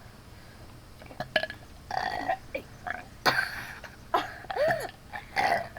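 Several short burps from people taking turns, one after another, each a brief separate belch.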